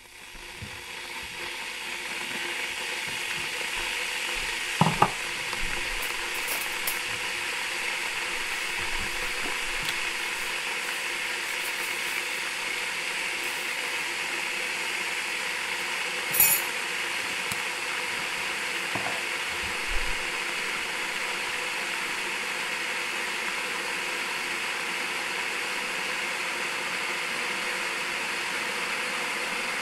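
Electric kettle heating water: a steady noise that builds over the first couple of seconds and then holds, with a few light knocks or clinks, the loudest about five seconds in.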